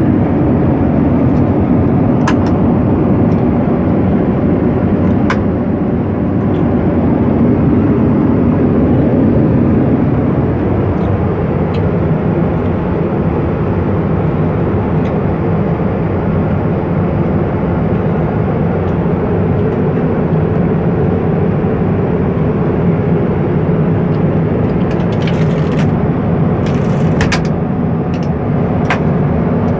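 Steady, loud airliner cabin noise heard inside the lavatory. A few sharp clicks and knocks sound about 2 and 5 seconds in, and a cluster near the end as a hand presses and works the vanity's panel.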